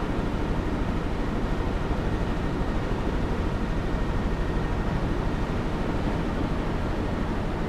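Helicopter in flight, its rotor and engine running steadily as a loud, constant noise with a fine, even ripple.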